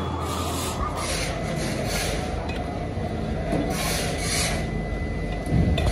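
Repeated rasping, scraping strokes every second or two over steady workshop machine noise, as in work on cast iron parts.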